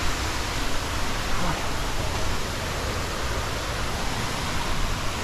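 Waterfall: the steady rush of falling water, an even noise with no breaks.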